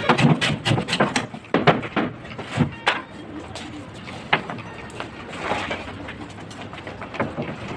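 Hammer striking a plywood cabinet panel in a run of irregular, sharp blows, most of them in the first three seconds and one more about four seconds in.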